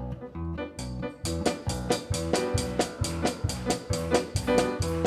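Worship band playing an instrumental song introduction: keyboard chords, joined about a second in by a steady drum beat at roughly four strokes a second.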